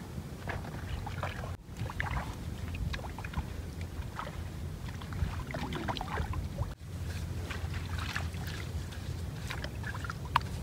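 Hands splashing and sloshing in shallow muddy water while duck eggs are gathered into a woven basket: scattered small splashes and knocks over a steady low rumble.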